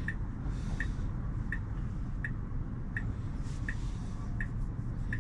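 Tesla turn-signal indicator ticking evenly, about once every three-quarters of a second, over a low steady cabin hum.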